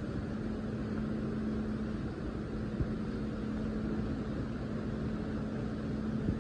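Steady ventilation drone with a constant low hum under it, the air-handling background of a large building.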